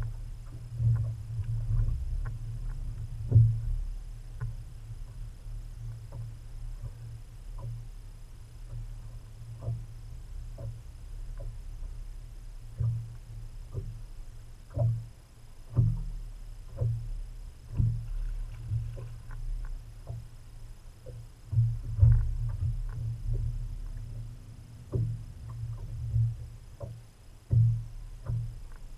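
Small waves slapping against a bass boat's hull: a low rumble with irregular thuds and knocks.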